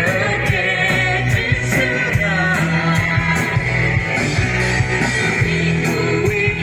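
Live praise-and-worship band playing at a sound check: a voice singing over guitar, bass and drums with a steady beat.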